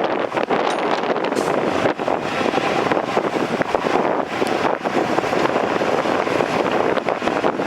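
Heavy diesel earthmoving machinery running steadily, with frequent short clanks and knocks through the engine noise and wind buffeting the microphone.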